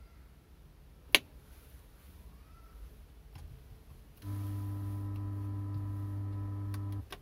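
Car touchscreen head unit: a sharp click about a second in, then a steady electronic hum with several higher tones over it from the car speakers for nearly three seconds, cutting off suddenly.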